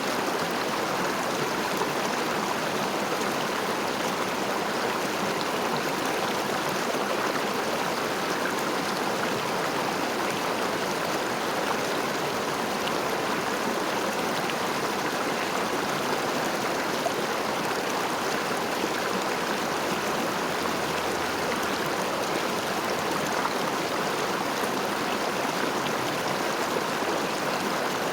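River water flowing over stones, a steady rushing with small gurgles that doesn't change.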